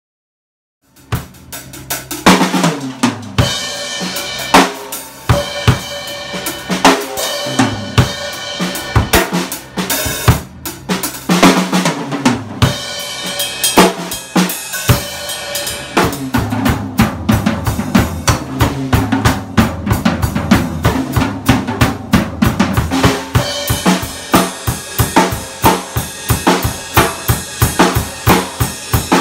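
PDP acoustic drum kit played live: kick drum, snare and cymbals in a fast, busy groove, starting about a second in after a moment of silence.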